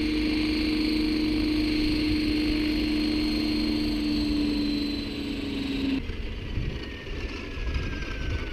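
Electric RC helicopter, an Align T-Rex 600 ESP, hovering with a steady rotor and motor hum that sinks slightly in pitch. About six seconds in the sound changes abruptly and a thin motor whine falls in pitch as the rotor spools down on the ground.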